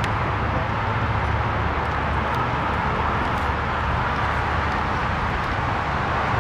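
Steady outdoor background noise with an uneven low rumble of wind on the camera microphone and a band of hiss; a few faint distant knocks sound now and then.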